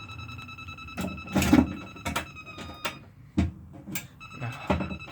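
Sharp clicks and knocks from handling the alarm panel, the loudest about a second and a half in, over a steady high electronic tone with overtones that glides down and fades about three seconds in, then returns faintly near the end.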